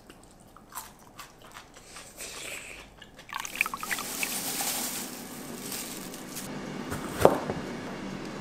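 Soft bites and chewing of fried chicken, then a sloshing, dripping liquid sound effect. Near the end a knife chops sharply on a plastic cutting board, cutting a yellow bell pepper.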